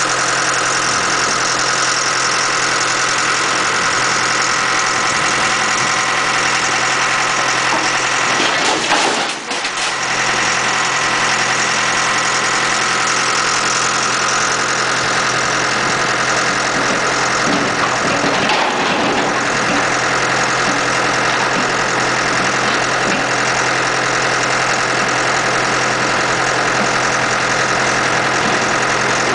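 Horizontal mobile scrap-metal baler running, a steady loud machine drone with many constant tones. About nine seconds in the level briefly jumps, then drops for a moment before the drone resumes.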